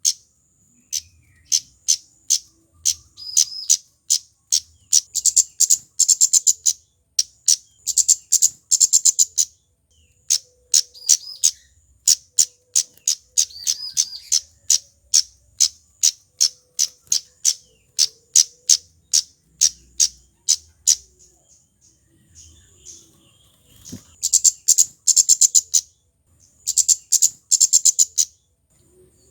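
Male scarlet-headed flowerpecker (kemade) singing: runs of short, sharp, very high notes, several a second, broken by a pause of a few seconds about two-thirds of the way through before it starts again.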